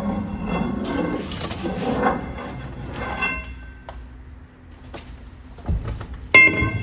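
Steel axle shaft of a Dodge M37 being drawn out of the axle housing through the hub: metal scraping and sliding with a faint ring for about three seconds. A few small clicks follow, then a dull thud and, near the end, a sharp ringing clink of metal as the freed shaft is handled.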